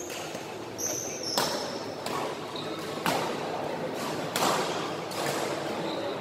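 Badminton doubles rally: rackets striking the shuttlecock about five times, roughly one hit a second, with a few short high squeaks of shoes on the court.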